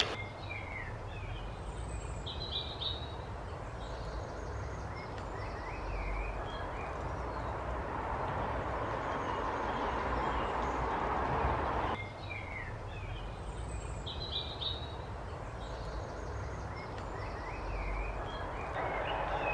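Steady traffic noise from a dual carriageway bridge, with birds chirping over it. The traffic swells slowly and drops off suddenly about two-thirds of the way through.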